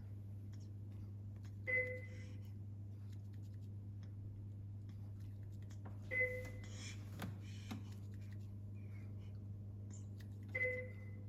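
An electronic device beeping: three identical short beeps, evenly spaced about four and a half seconds apart, over a steady low hum.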